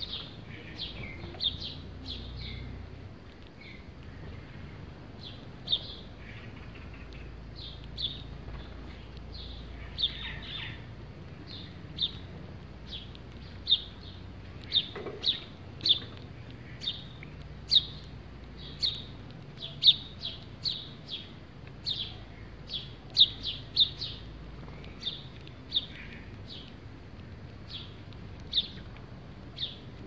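House sparrows chirping: a steady run of short, sharp chirps, coming faster and louder in the second half.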